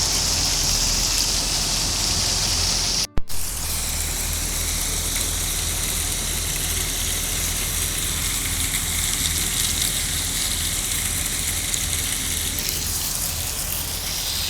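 A nearby engine running steadily at low speed, a low pulsing hum under an even hiss. The sound cuts out for a moment about three seconds in, then carries on unchanged.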